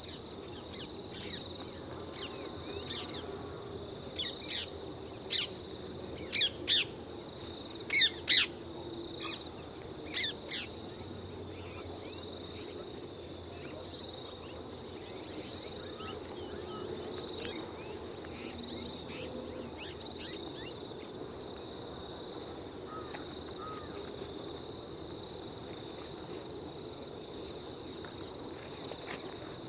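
Birds calling: a string of short, sharp calls, several in quick pairs, clustered in the first third, the loudest about eight seconds in. Under them runs a steady high-pitched drone of insects.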